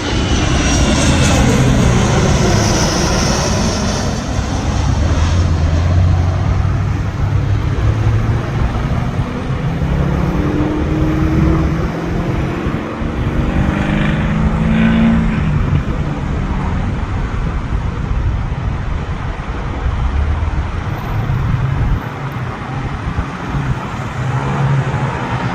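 Aircraft passing low overhead with a loud, steady engine rumble. A whooshing sweep dips and rises in pitch over the first few seconds as it goes over.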